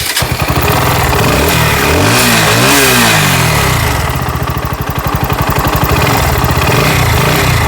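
Bajaj Pulsar NS160 BS6 single-cylinder motorcycle engine running, revved once about two to three seconds in, then settling back to idle. It runs quietly, without the earlier tick-tick, after a loose timing chain that had been striking the head was fixed.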